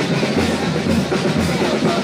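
Music led by drums, with a steady bass-drum beat of about two strokes a second.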